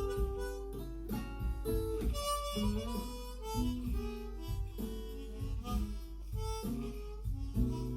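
Blues harmonica (blues harp) improvising in A with held and bent notes, over plucked guitar accompaniment.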